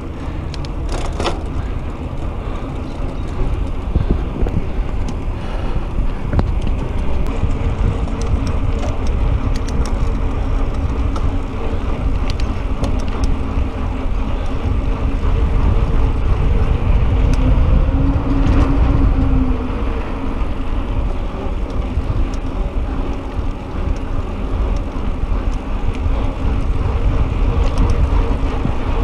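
Mountain bike rolling along a paved path: steady tyre noise with a faint hum, a deep rumble of wind on the microphone, and a few light clicks and rattles from the bike.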